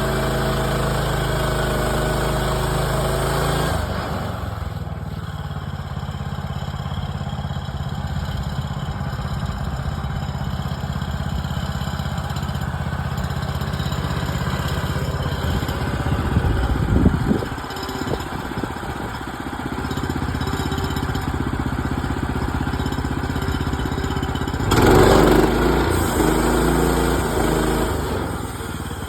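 Small gasoline engine of a Woodland Mills HM130 Max portable bandsaw mill running. It runs at a higher speed at first and drops to a lower, steady speed about four seconds in. There is a short louder, uneven spell in the middle and another near the end.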